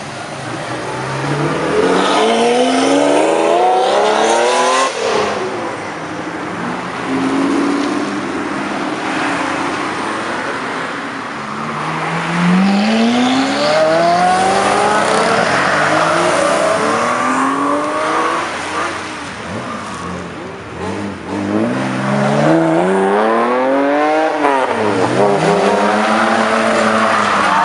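Sports cars accelerating hard away one after another, each engine revving up in rising pulls. A Lamborghini Aventador's V12 climbs in the first few seconds, a Ferrari F430 Spider's V8 rises about halfway through, and a Mazda RX-7 revs up near the end, its pitch climbing and then dropping sharply.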